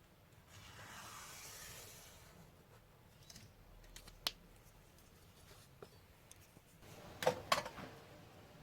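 Small handling noises on a workbench: a soft brushing swish, then a single sharp click about four seconds in, and two knocks close together near the end.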